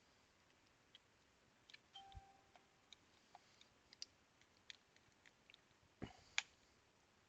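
Faint, scattered clicks and light taps of small Game Gear plastic parts being handled and fitted together, with a dull knock about six seconds in followed at once by a sharper click.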